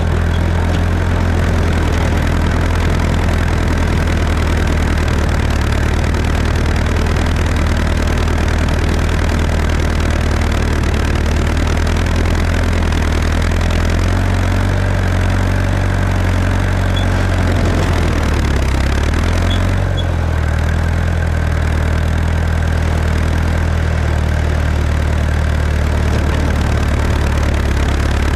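Tractor engine running steadily, with a brief change in its note about two-thirds of the way through.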